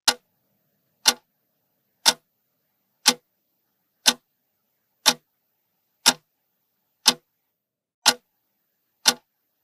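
Countdown-timer tick sound effect, a clock-like tick once a second, ten ticks in all with silence between them.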